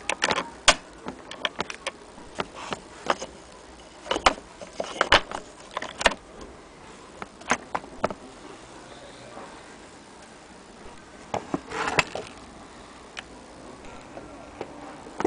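Irregular metallic clicks, knocks and small rattles as the metal parts of an antique Wheeler & Wilson sewing machine are handled and moved, in clusters near the start, a few seconds in, and again about twelve seconds in.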